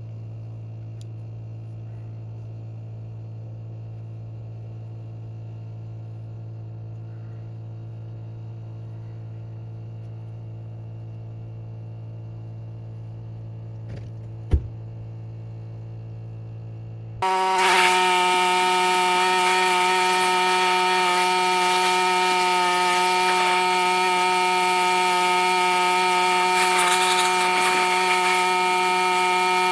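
A steady low engine hum with one sharp knock about 14 seconds in. About 17 seconds in it changes abruptly to a much louder, steady machine drone with several high, even whining tones, like an engine-driven power tool running.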